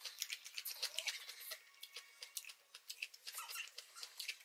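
Close-up eating sounds from a pan of saucy noodles: a rapid, irregular run of small wet clicks and smacks as chopsticks work through the noodles and a mouthful is chewed.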